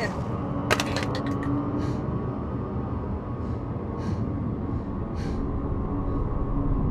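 Steady low rumble of a car cabin idling in stopped traffic. A sharp click comes about a second in, followed by a few quick clicks, with soft short hisses every second or so.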